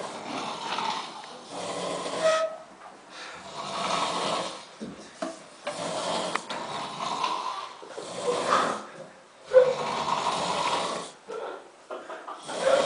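A person snoring, a long snore on each breath, one every two to three seconds.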